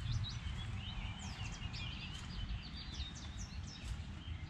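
Small birds chirping and singing, many short rapid calls, over a steady low rumble of outdoor background noise.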